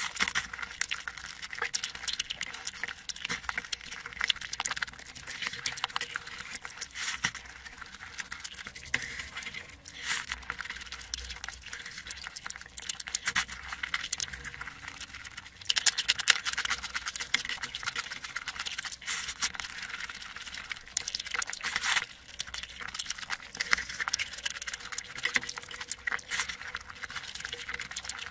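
Close-miked eating sounds: wet chewing and lip-smacking of a mouthful of curry and rice, a dense stream of small crackly clicks.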